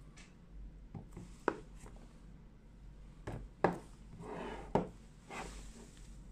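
A shrink-wrapped cardboard phone box being handled: several sharp taps and knocks against it and the table, with short rubbing and crinkling of the plastic wrap as a knife is set to the cellophane.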